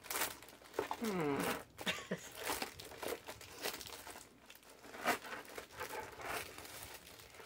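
Paper and packaging rustling and crinkling in irregular bursts as items are handled, with a brief murmur of a woman's voice about a second in.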